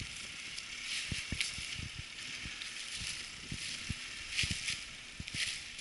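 Footsteps crunching through dry fallen leaves, with irregular soft thumps and short rustling scuffs over a steady hiss.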